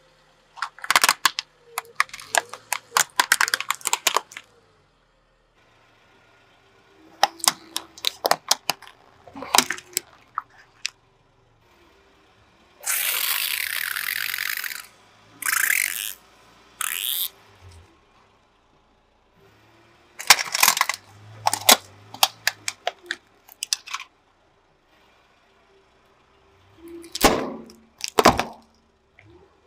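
A car tyre crushing objects one after another, in separate bursts of plastic cracking and snapping. A few seconds after the middle, plastic bottles burst under the tyre and liquid sprays out in a hiss lasting about two seconds, followed by two shorter spurts.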